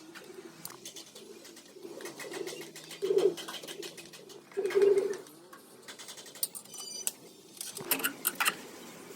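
A bird calling in low, pitched phrases, loudest twice in the first half, with a few sharp clicks near the end.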